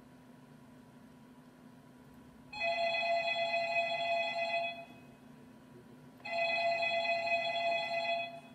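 Telephone ringing twice as a stage sound effect, each ring about two seconds long with a pause of about a second and a half between them.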